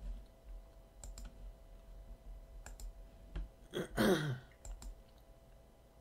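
Scattered sharp clicks of a computer mouse, single and in pairs. About four seconds in comes a short falling vocal 'hmm'.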